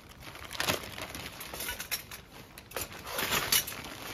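Clear plastic film wrapping crinkling and rustling in irregular bursts as it is pulled and handled to unwrap a packaged rack.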